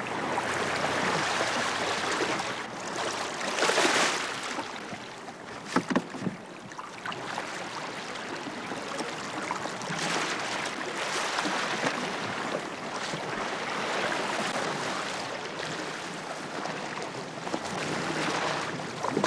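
Sea water splashing and churning as a right whale surfaces beside a small boat, with water washing along the hull. Swells of louder splashing come about four and ten seconds in, and a couple of sharp knocks about six seconds in.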